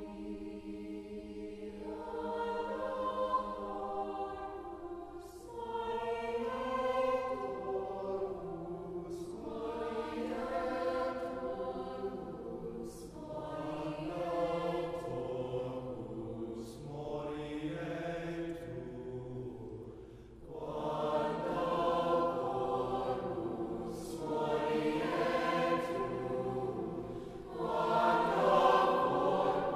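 Mixed-voice choir singing a slow choral piece in long sustained phrases of about four seconds, with short breaks between them. It swells louder near the end.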